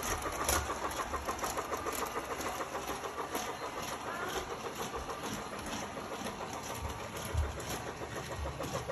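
Small motor of a toy robot buzzing with a rapid, steady pulsing.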